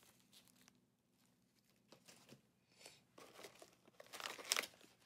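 Plastic snack wrappers crinkling as they are handled: a few faint rustles at first, then louder, denser crinkling about four seconds in as packets are shifted in the box.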